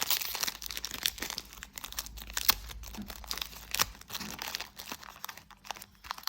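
Foil wrapper of a Pokémon booster pack crinkling and tearing as it is pulled open and handled, a dense run of irregular crackles with a few louder snaps.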